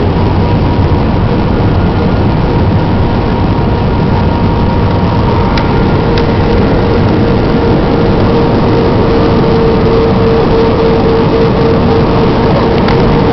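Airbus A319 cabin noise on approach: a steady roar of engines and airflow with a steady whine that grows stronger over the second half, and a couple of faint clicks about halfway through.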